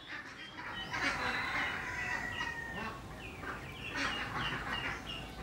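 A flock of domestic ducks and ducklings calling, with many short overlapping calls in a busy chorus that grows louder about a second in.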